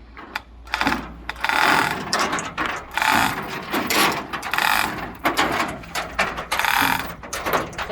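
A hand ratchet clicking through a series of strokes, about one a second, as it takes up a strap lifting a pickup truck's cab off its frame.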